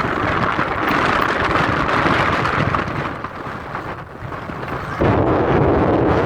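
Strong wind buffeting the microphone, a loud rough rumble that eases for a moment and then jumps up again abruptly about five seconds in.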